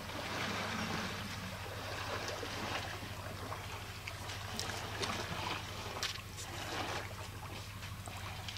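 Water sloshing and splashing as a spotted hyena tugs at a carcass lying in a shallow waterhole, with a scatter of sharper splashes in the middle.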